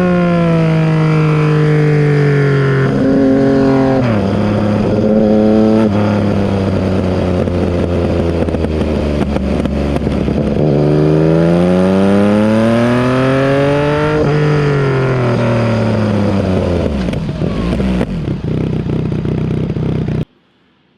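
Yamaha MT-09 SP's three-cylinder engine running through an SC-Project full exhaust with the dB killer fitted, under way on the road. The pitch drops at a gear change about four seconds in, climbs steadily under acceleration, falls away as the bike slows, and cuts off suddenly near the end.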